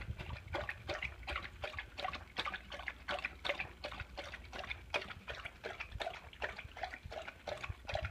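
A dog licking its food bowl clean: quick wet licks and smacks, several a second.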